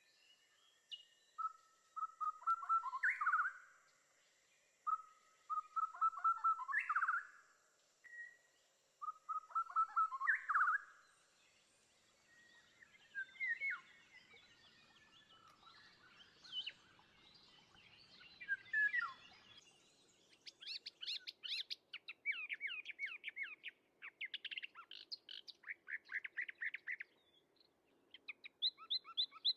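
Birds singing. One phrase, a quick run of notes ending in an upward sweep, comes three times in the first half, followed by rapid, high chirping trills through the second half.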